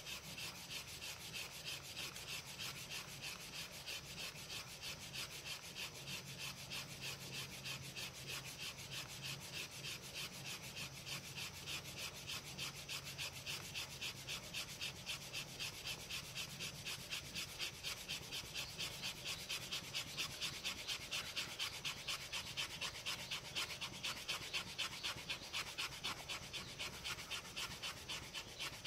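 Handled blade scraping down a split piece of wood in quick, even strokes, about two to three a second, growing stronger in the second half.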